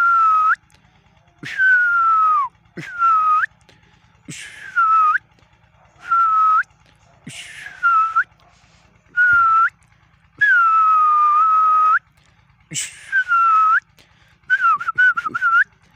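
A dog whining in a string of about ten high, drawn-out cries, each dropping a little in pitch, with a quicker wavering run of whimpers near the end.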